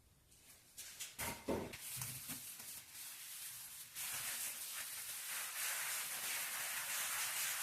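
Hand work on wet concrete: a few soft knocks and scrapes, then a steady hiss from about four seconds in.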